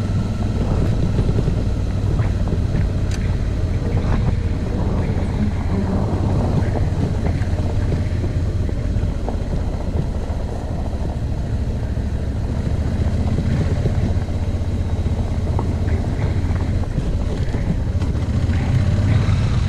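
Suzuki V-Strom motorcycle's V-twin engine running steadily under way at an even speed, with wind noise over it.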